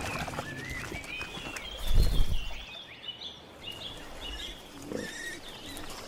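Wild boar grunting, with a louder grunt about two seconds in, while small birds chirp throughout.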